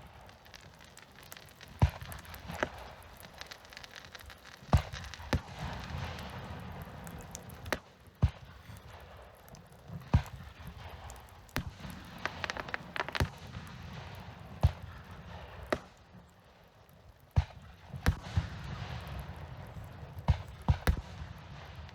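Aerial fireworks bursting: sharp bangs every second or so, with stretches of crackle trailing after some of them, and a short lull about two-thirds of the way through.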